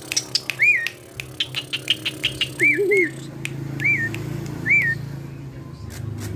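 Asian pied starling (jalak suren) calling: about five short whistled notes, each rising then falling, mixed with a quick run of sharp clicks in the first half. A steady low engine hum runs underneath.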